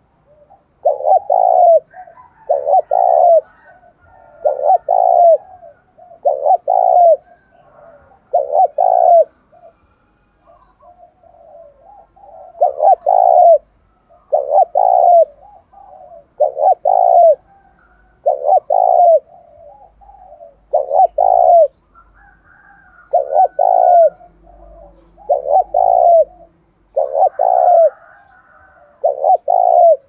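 Spotted dove cooing its fast dueling coo: short double-stroke phrases repeated about every two seconds, with a pause of a few seconds about ten seconds in.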